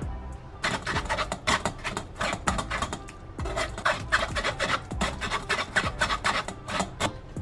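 A stainless steel ladle scrapes against a fine stainless steel mesh sieve, pressing cooked onion and red pepper through it to purée a sauce. It makes quick rasping strokes, about four a second, with a short break near the middle.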